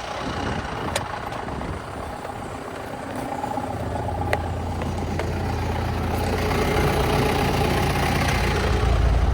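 Diesel engine of a John Deere 6420 tractor running after its fuel lines and fuel pump were repaired for a no-start. A low, steady drone comes in about a third of the way through and grows louder.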